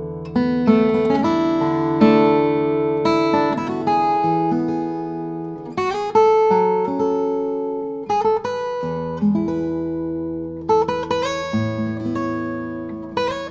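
Steel-string acoustic guitar played fingerstyle, with plucked chords and melody notes that ring and decay over sustained bass notes. The guitar is a Nightingale N400F 12-fret with ebony back and sides, a sinker redwood top and 80/20 bronze strings.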